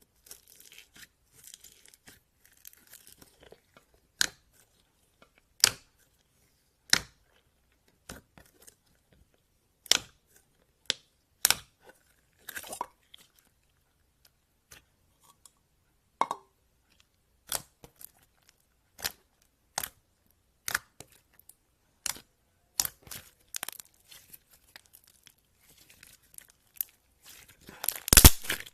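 Slime being played with: scattered short, crisp pops and crackles about once a second, turning into a dense run of loud crackling near the end.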